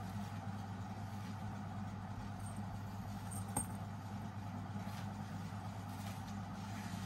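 A steady low mechanical hum that does not change, with a single click about three and a half seconds in.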